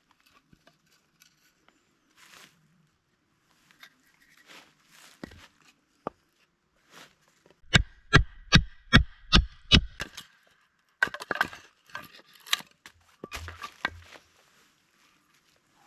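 Wood being struck and broken: a rapid run of about nine sharp knocks, about four a second, near the middle, then further knocks and crackling snaps of breaking wood.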